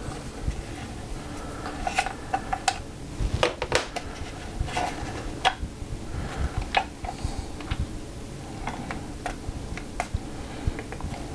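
Irregular small clicks and knocks of hard plastic and a wire spring being handled as the ALS retention spring and parts of a Safariland polymer holster are fitted back in by hand.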